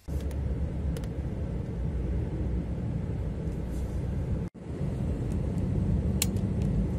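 Steady low rumble of diesel lorry engines running on a ferry's enclosed vehicle deck. It cuts out for a moment a little past halfway, and there is a light click near the end.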